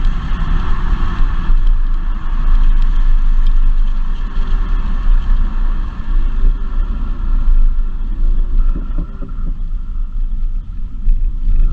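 Mercedes-Benz C400's 3.0-litre twin-turbo V6 engine and exhaust running with a loud, low rumble, faint engine tones drifting slowly in pitch. A steadier engine tone comes back in near the end.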